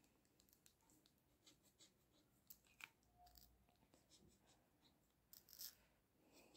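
Faint scratching on a Mega Linia scratch-off lottery card, its coating rubbed away in short, irregular scrapes. A few scrapes come slightly louder about halfway through and again near the end.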